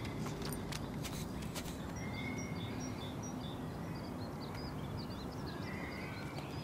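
Outdoor ambience: birds chirping and twittering over a steady low background rumble, with a few sharp clicks in the first couple of seconds.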